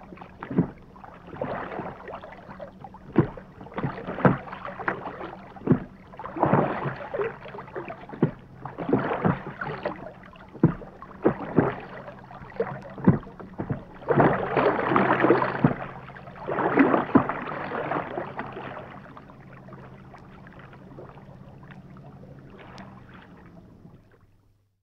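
Rowboat being rowed: oars splash and knock with each stroke, one every one to two seconds. The strokes stop about nineteen seconds in, and the boat drifts with only a faint steady background.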